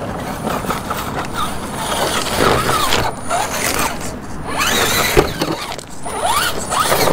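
Electric drive of an RGT EX86010 CJ 1/10 scale RC rock crawler, its 550 motor and gears whining and rising and falling in pitch with the throttle as it crawls down over rocks, with a sharp knock from the chassis or tires on stone about five seconds in.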